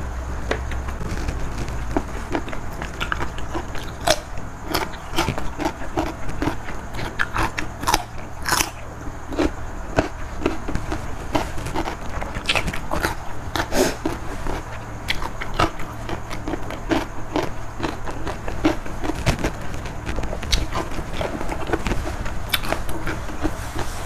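A person chewing a mouthful of spicy Thai seafood salad with raw vegetables: irregular wet smacks and clicks of the mouth, one sharper smack about eight seconds in, over a steady low hum.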